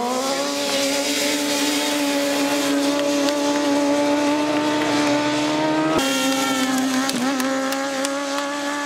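Motorcycle engine held at high, steady revs during a wheelie, a steady high-pitched drone. The pitch drops suddenly about six seconds in, then holds steady again.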